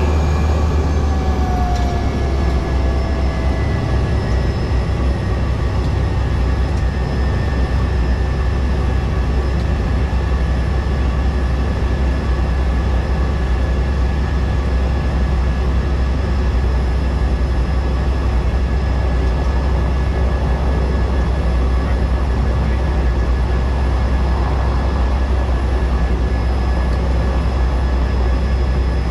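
Cessna 208B Caravan's PT6A turboprop engine and propeller running steadily: a loud, constant low drone with a high whine over it. The whine's pitch eases down over the first few seconds and then holds.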